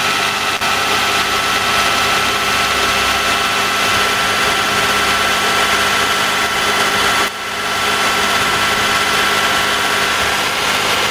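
A 2001 Toyota Camry's V6 engine idling steadily, with a brief dip in level about seven seconds in before it settles back.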